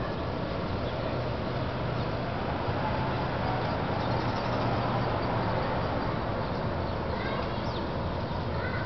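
Steady city street ambience: a constant wash of traffic noise with a low hum underneath, and a few short bird chirps near the end.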